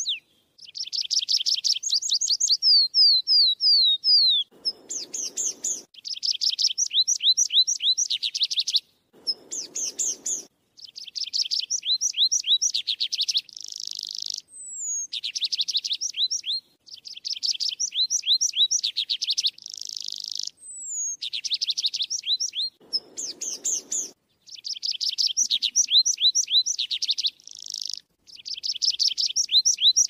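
Tree pipit singing: a series of song phrases, each a fast run of repeated high notes with a short pause between phrases. Some phrases end in a few slower, drawn-out descending notes.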